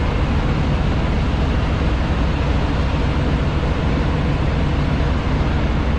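Semi-truck diesel engine idling steadily, a constant low rumble with a hiss over it.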